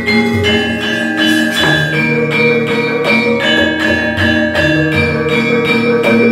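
Javanese gamelan ensemble playing: bronze saron metallophones struck in a steady stream of ringing notes, about three to four strikes a second, with the kendang hand drum beating underneath.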